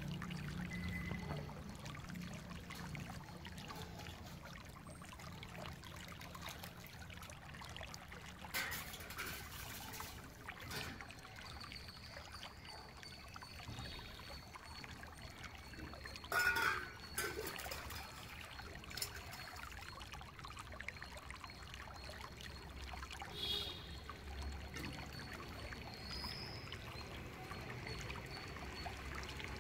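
Stainless steel bowls handled on a wet tiled floor, with water trickling and dribbling as they are tipped. A few clinks of the steel vessels are heard, the loudest, ringing briefly, about halfway through.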